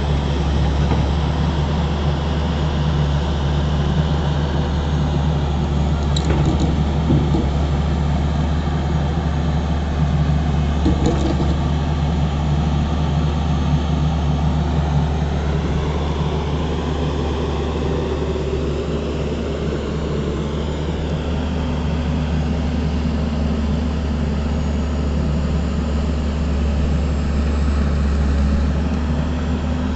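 Tata Hitachi excavator's diesel engine running steadily, a deep even drone, with two faint clicks about six and eleven seconds in.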